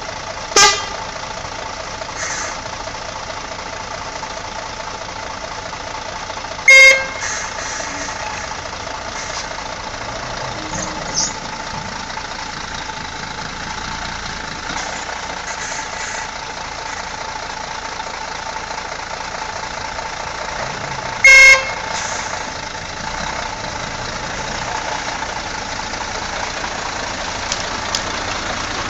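Heavy truck engine running steadily as a loaded logging truck crawls along, broken twice by a short, loud truck horn toot, about a quarter of the way in and again about three quarters in.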